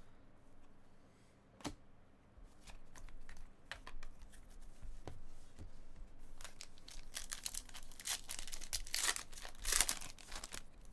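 Trading card pack wrappers being torn open and crinkled, with a sharp click about two seconds in; the tearing and rustling build up and are loudest near the end.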